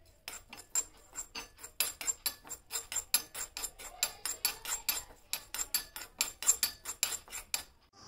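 A fast, uneven run of sharp clicks and taps, about four or five a second, that stops just before the end.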